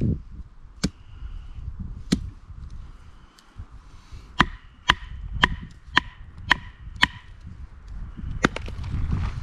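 Firewood being chopped: a few scattered blows, then a quick run of six strikes about two a second, and one more near the end, some leaving a short ringing tone.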